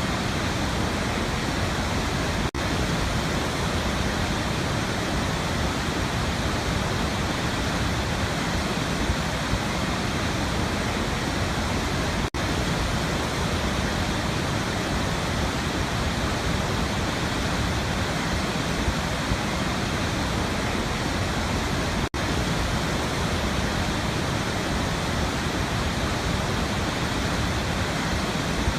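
Waterfall: a steady, even rush of falling water. It drops out for a split second three times, about ten seconds apart.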